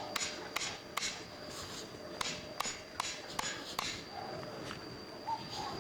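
A series of light, sharp knocks, about two a second, stopping about four seconds in, over a faint steady high-pitched tone.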